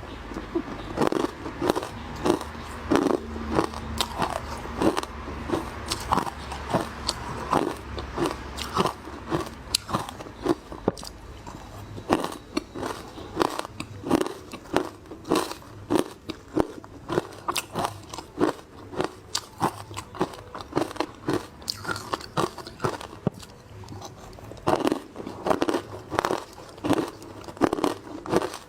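Close-up biting and chewing of crunchy frozen matcha ice: a continuous run of crisp crunches, about two a second.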